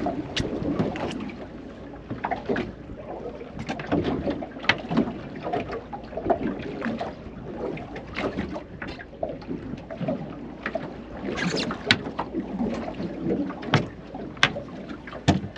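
Water slapping against the hull of a drifting fishing boat, a steady rough wash broken by irregular sharp knocks and clicks.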